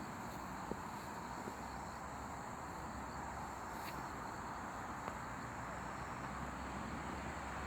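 Steady outdoor ambience: an even hiss with a faint, steady high-pitched insect buzz, and a few small clicks.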